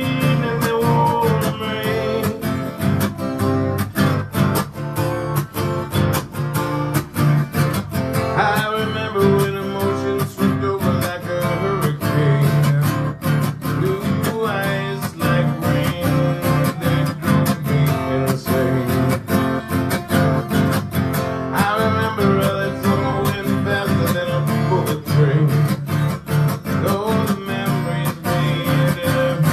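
Acoustic guitar strummed steadily, a live country-style song.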